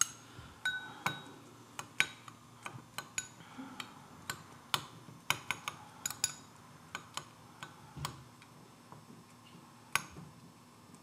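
A teaspoon clinking and tapping against a bowl while ingredients are mixed: irregular sharp clinks, a few a second, some ringing briefly.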